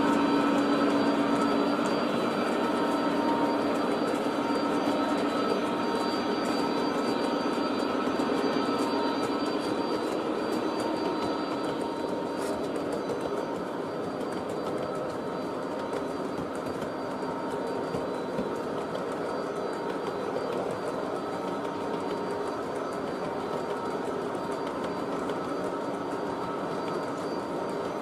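O gauge three-rail model freight train, a long string of coal hopper cars with a diesel locomotive, running past on the track: a steady rumble of wheels on rails with a hum, getting slowly quieter.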